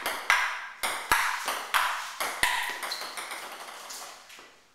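Table tennis ball clicking back and forth in a rally, struck by paddles and bouncing on the table: a quick series of sharp clicks about two a second, each with a short echo off the garage walls, getting fainter toward the end.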